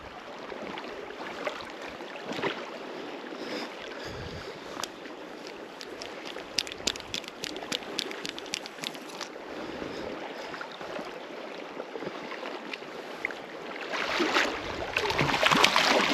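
River water flowing steadily while a hooked brown trout is played on a fly rod, with a run of quick clicks from the fly reel about halfway through and louder splashing near the end as the fish comes in.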